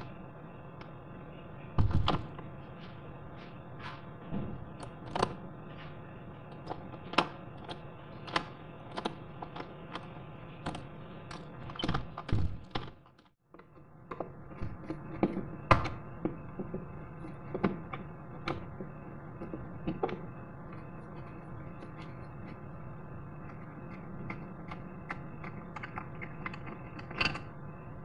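Irregular sharp metallic clicks and taps from a tool being worked in a euro cylinder door lock under a lever handle, over a steady hiss. A short break comes about 13 seconds in.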